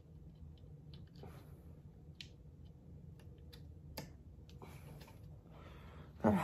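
Scattered small plastic clicks and ticks as a screw is driven by hand into the plastic neck mechanism of an animatronic prop's head, with a louder knock near the end.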